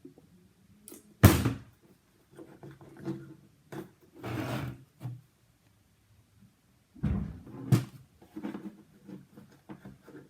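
Knocks and scrapes of slime-making supplies being handled and set down on a table: a sharp knock about a second in, a short scrape near the middle, and two more knocks about seven seconds in.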